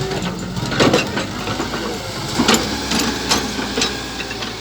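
Small electric motor of an RC model excavator running steadily, with irregular clicks and knocks as the machine works.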